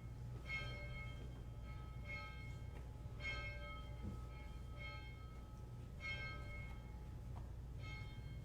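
Church bells ringing, a series of struck notes at varying pitches about once a second, each ringing on briefly, over a faint low steady hum.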